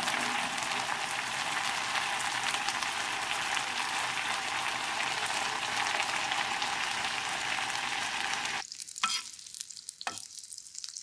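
A pot of budae jjigae (Korean army stew) boiling hard in red broth, a dense bubbling and sizzling crackle, while ramen noodles are stirred through it. The sound cuts off about nine seconds in, leaving only a few faint clicks.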